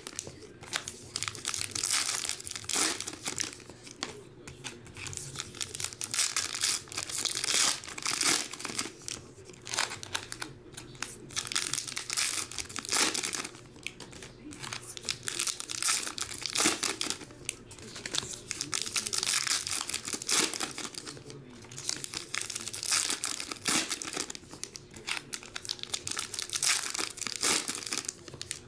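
Foil wrappers of Topps Heritage baseball card packs crinkling and tearing as the packs are opened by hand, along with the cards being handled. It comes as an irregular string of rustling bursts.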